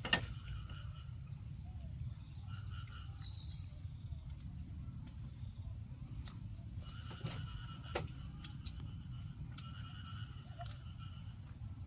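Insects, crickets by their sound, trilling steadily at a high pitch over a low rumble, with a sharp knock at the very start and two softer knocks about seven and eight seconds in.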